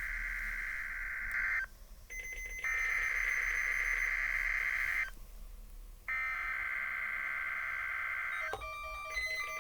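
NOAA Weather Radio Required Weekly Test: three bursts of the SAME digital header, a harsh warbling data screech, each about two and a half seconds long with short gaps between them. Near the end a string of electronic beeps of changing pitch begins.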